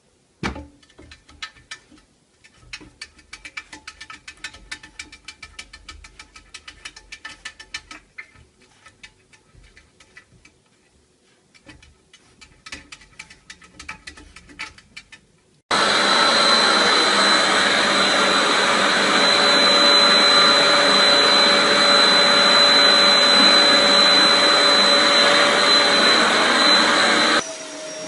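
Scattered light clicks and taps for about fifteen seconds. Then a loud, steady motorised appliance noise with a high whine starts suddenly and cuts off shortly before the end.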